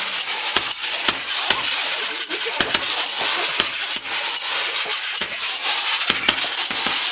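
Firework crackling densely with sharp pops, over a steady high-pitched whistle that holds one pitch throughout.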